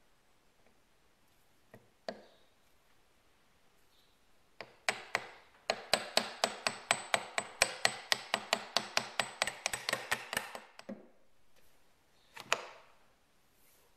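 Rapid, even tapping with a brass bar, about five light blows a second for some six seconds, driving a part down into the steel body of a Kitagawa B206 power chuck. A single knock follows near the end.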